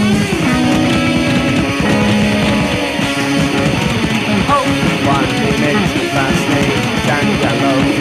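Instrumental rock music led by guitar: held notes over a dense band, with bent guitar notes starting about halfway through.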